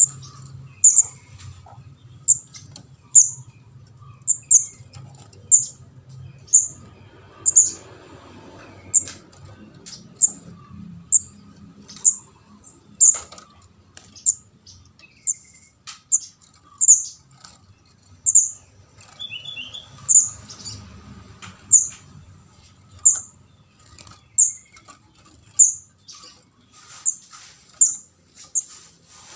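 Juvenile kemade jawa (ndas abang) calling a short, sharp, very high chip over and over, about one call a second. This is a fledgling's begging call, used as a lure to trap the species.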